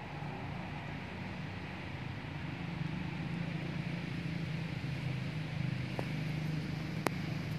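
Steady low engine drone that grows louder about two and a half seconds in, with two sharp clicks near the end.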